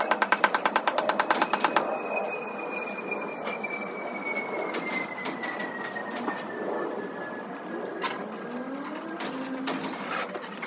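Rapid, even light tapping at about eight taps a second, typical of a paintless dent repair tap-down tool working high spots on a car panel, which stops about two seconds in. After that come occasional single taps and a faint, slowly falling whine.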